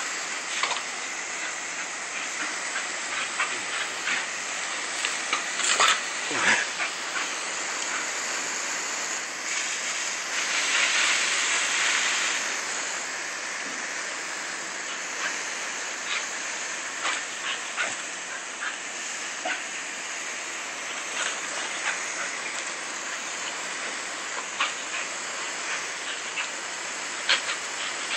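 Steady hiss of a garden hose's water jet spraying onto grass and leaves, with scattered short splashes and clicks. The spray grows louder for a couple of seconds near the middle.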